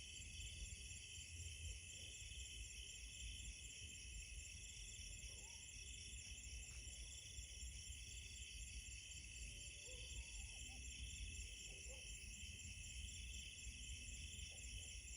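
Night insect chorus: several overlapping trills at different pitches, steady and faint, over a low rumble, with a few faint short chirps in the middle.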